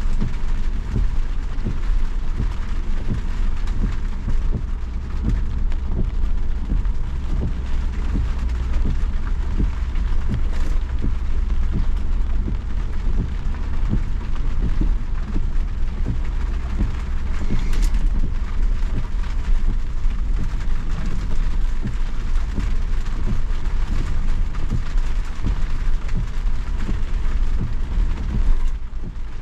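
Ford Bronco engine pulling at low speed as it crawls up a steep, washed-out dirt trail, a steady low rumble, with rain falling and many small ticks of raindrops.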